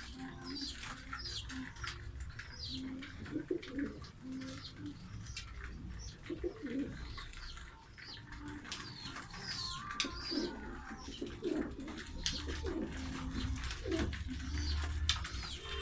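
Pigeons cooing over and over in low, repeated phrases, with smaller birds chirping in short high notes throughout. A low hum grows louder near the end.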